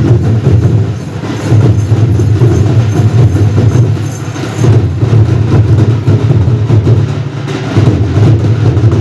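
Large nagara drums beating for a village folk dance, recorded loud, with the deep drum sound dominating and a noisy din of the crowd and other instruments above it.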